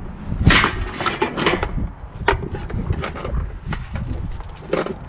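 Rummaging through junk in a dumpster: irregular knocks, clunks and scrapes as items are handled and shifted about.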